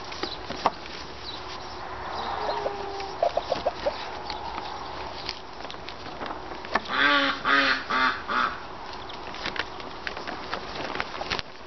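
Polythene sheeting crinkling and rustling as it is rolled round a timber batten, with small knocks. About seven seconds in, a bird gives a run of about four harsh calls, the loudest sound here.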